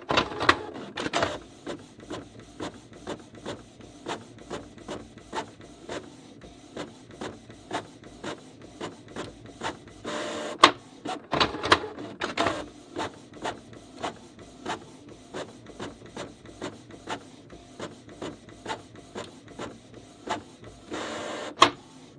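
Desktop printer printing a page: a steady run of mechanical clicks, about two or three a second, with louder stretches of mechanism noise near the start, twice around the middle and near the end.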